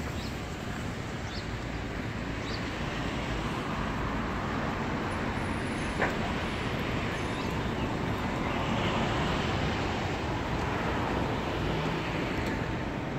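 Steady road-traffic and bus-engine noise around a coach station, swelling for a few seconds in the second half as a vehicle moves close by. A single short knock about six seconds in.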